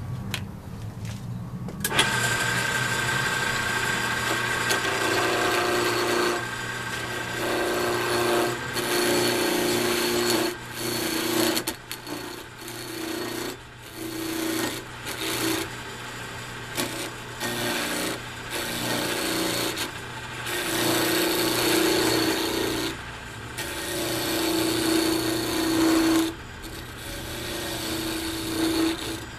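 A wood lathe's motor comes on, then a hand-held turning tool cuts square cocobolo pen blanks spinning on a mandrel, roughing them down to round. The scraping cut comes and goes many times as the tool meets the wood and lifts off, over a steady motor hum.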